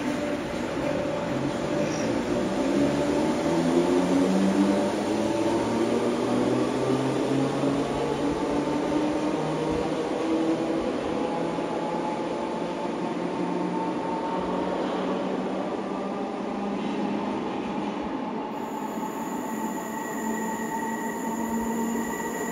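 Merseyrail electric train pulling out of an underground platform, its motors whining upward in pitch as it accelerates away, then settling into a steadier hum as it recedes down the tunnel. A steady high whine comes in over the last few seconds.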